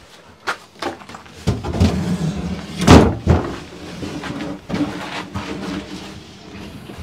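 A wooden kitchen cabinet being lifted and shifted: scraping and knocks of wood on wood, with the loudest thump about three seconds in.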